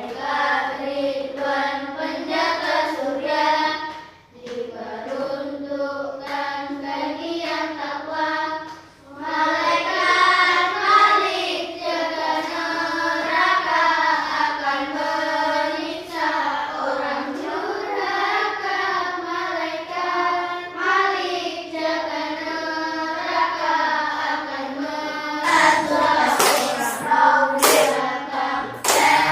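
Children singing together in Indonesian, a song naming the angels and their duties, with brief breaks between phrases. Hand claps come in near the end.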